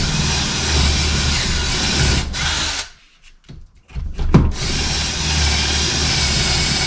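Power drill boring pilot holes into a wooden board for screw-in utility hooks: two steady runs of the drill, a short pause with a single knock between them.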